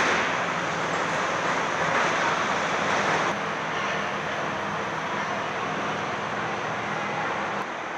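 Factory-floor noise in a truck assembly plant: a steady wash of machinery and ventilation noise under a low hum. It drops a little in level a little over three seconds in and again near the end.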